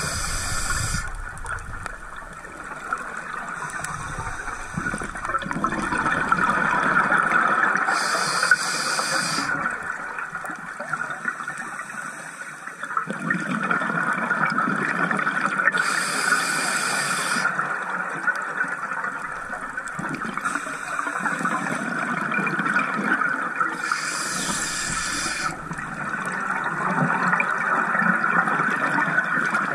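Scuba diver breathing through a regulator underwater: four short hissing inhales, about eight seconds apart, each followed by a long rush of exhaled bubbles, over steady underwater noise.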